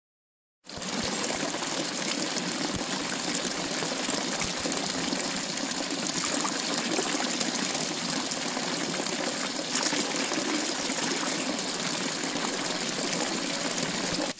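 Mountain spring water gushing steadily from several spouts of a stone wall fountain and splashing into the stone basin below. It starts suddenly just under a second in.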